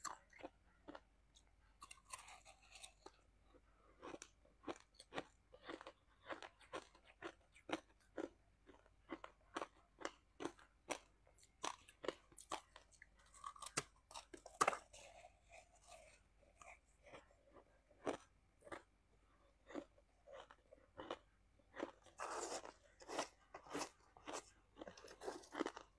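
Close-miked crunching and chewing of shaved ice: a run of sharp, crisp crunches, about two or three a second, growing denser near the end.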